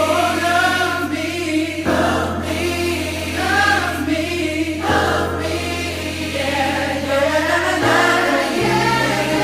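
Background music: a choir singing over sustained bass chords that change every few seconds.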